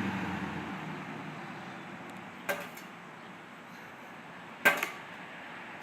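Two sharp clinks about two seconds apart, the second louder, each with a brief ring, over faint background noise.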